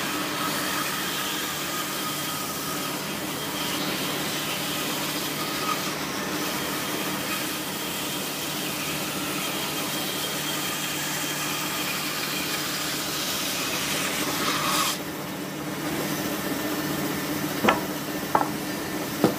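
Band saw running and cutting through a thick log round, sawing out a round blank for a mortar: a steady whine with hiss. The high hiss drops about 15 s in, and a few sharp knocks come near the end.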